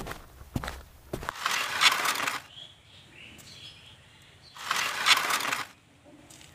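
Footsteps on a concrete floor over faint background music that stops after about a second, then two metallic scraping rattles, each about a second long, as a steel sheet-metal gate is opened.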